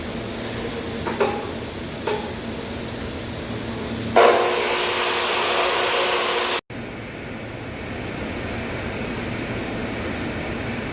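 Two light metallic knocks, then a power tool's motor spins up with a rising whine, runs loudly for about two seconds and cuts off suddenly, over a steady background hiss.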